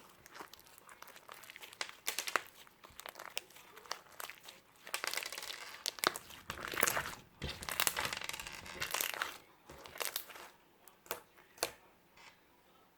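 Irregular crinkling and rustling of something being handled, with sharp crackles among it; it dies down about a second before the end.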